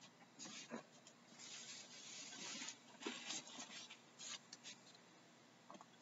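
Near silence with faint, scratchy rustling in patches and a few light clicks.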